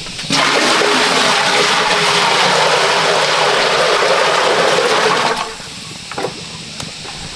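Water gushing hard and steadily for about five seconds, then stopping abruptly, followed by a few light clicks and knocks.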